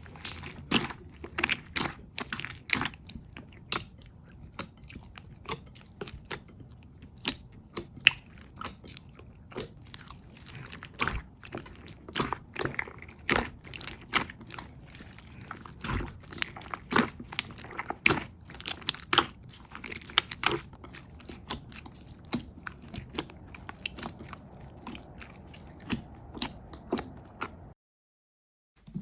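Jelly slime being squeezed and stretched by hand, giving a dense run of irregular wet clicks and crackles that stops suddenly near the end.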